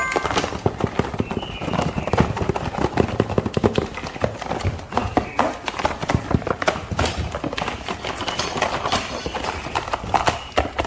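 Rapid, irregular clicking and tapping of plastic being handled, such as toy figures and their packaging during unboxing.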